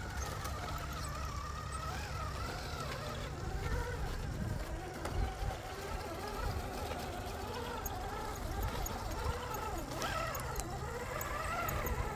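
Electric RC rock crawler's motor and gearbox whining, the pitch wavering up and down with the throttle as it climbs, over a steady low rumble.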